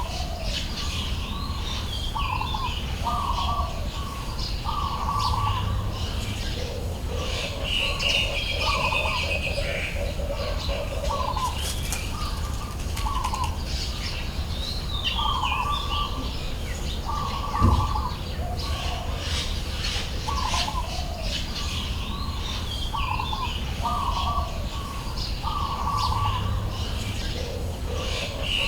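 Birds calling throughout: a short call repeated about once a second, with higher chirps above it, over a steady low rumble. A single knock comes about two-thirds of the way through.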